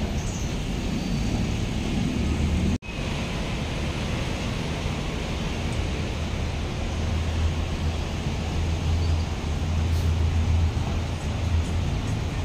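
Traffic on a busy city road: the diesel engines of passenger jeepneys and a city bus running past, with a steady low engine drone that grows stronger in the second half. The sound cuts out for an instant about three seconds in.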